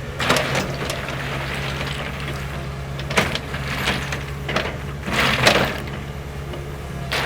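Track hoe's diesel engine running steadily, with short bursts of crushed rock scraping and rattling as the bucket smooths it out. The loudest bursts come about three seconds in and around five seconds in.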